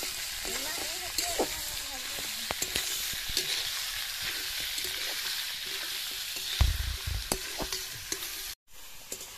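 Duck meat sizzling in a metal wok while a metal spatula stirs it, scraping and clicking against the pan. A heavier knock comes about two-thirds of the way through, and the sound breaks off briefly near the end.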